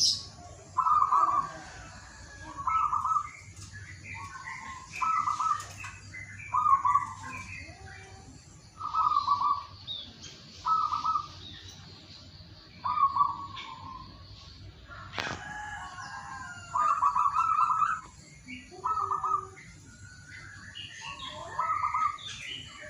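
Zebra dove (perkutut) cooing: short notes repeated about every one to two seconds. Small birds chirp higher in the background, and there is a single sharp click about fifteen seconds in.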